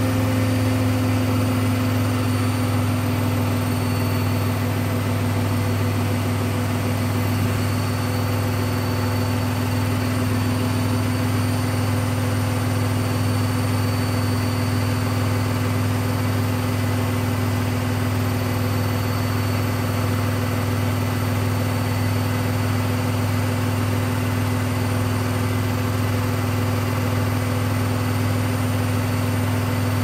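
Hoover Dynamic Next front-loading washing machine in its loud final spin: the drum turns at speed with a steady deep hum and a steady whine over it.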